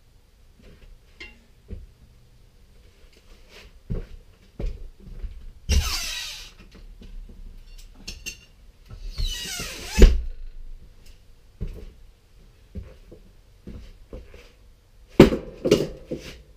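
Handling noise in a workshop: scattered knocks and thuds, two loud scraping swishes about six and nine seconds in, and a quick clatter of knocks near the end.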